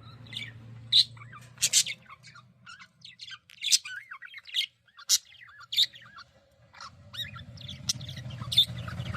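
Pet budgerigars chirping and chattering: a run of short, sharp chirps and warbling calls every fraction of a second, over a faint low hum.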